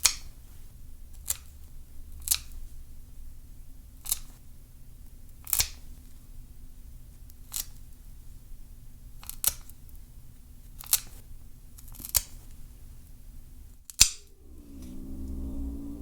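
Nail clippers snipping a cat's claws: about ten sharp clicks, one every one to two seconds. Near the end the cat starts a low, drawn-out yowl of protest.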